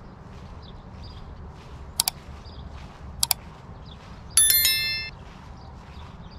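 Subscribe-button animation sound effects: two quick double mouse clicks, then a bright notification bell ding about four seconds in that rings for under a second. Faint regular footsteps run underneath.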